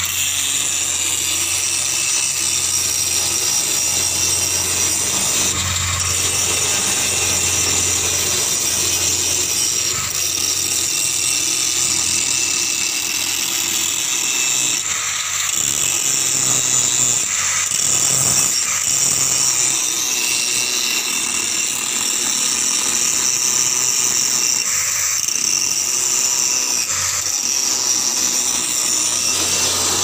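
Angle grinder grinding during heavy-equipment repair, running steadily with a high-pitched hiss.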